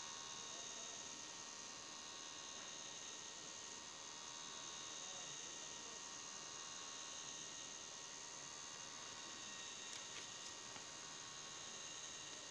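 Faint, steady electrical hum and hiss with a thin high whine, unchanging throughout, with no distinct mechanical events.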